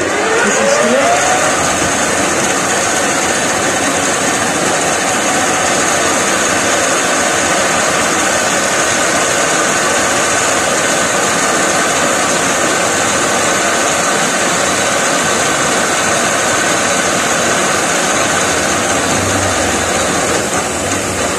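Metal lathe starting up, its pitch rising over the first second or so as the spindle comes up to speed. It then runs steadily with a constant whine and a high hiss.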